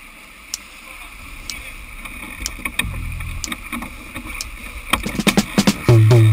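Sailboat under way: a steady wash of water along the hull and wind on the microphone, with background music fading in under it. The music's beat grows stronger, and its bass line enters near the end.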